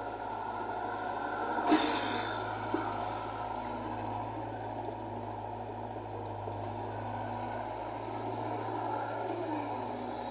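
Diesel engine of a Caterpillar tracked excavator running steadily as it digs and swings, with one brief loud clatter of the bucket and soil a little under two seconds in.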